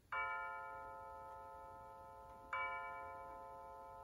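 Rhythm WSM Nice Classic chiming mantel clock striking the hour: two bell-like strokes about two and a half seconds apart, each ringing out and slowly fading. They are part of its 3 o'clock strike of three strokes.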